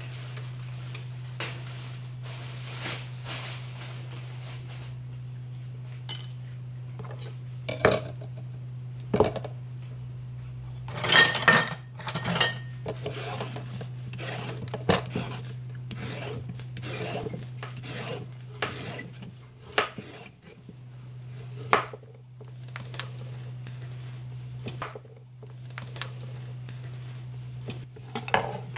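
Vegetable peeler scraping down a carrot in repeated strokes over a wooden cutting board, with a few sharp knocks on the board. A steady low hum runs underneath.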